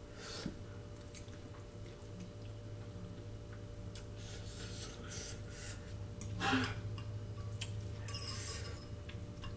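Someone eating saucy stir-fried noodles with a fork: several short slurping and mouth noises, the loudest about six and a half seconds in, over a steady low hum.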